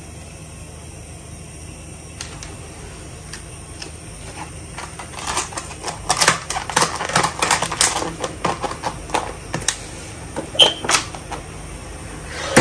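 Lid of a plastic takeaway food container being pressed down and snapped shut: a rapid run of small plastic clicks and crackles for several seconds, then a few separate clicks near the end.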